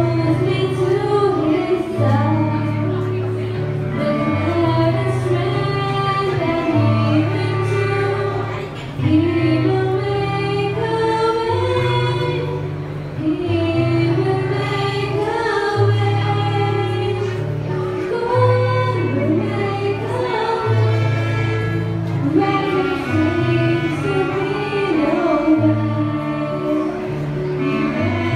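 A girl singing into a microphone, backed by a small live band of electronic keyboard, violin and clarinet. The keyboard holds long low notes under the melody.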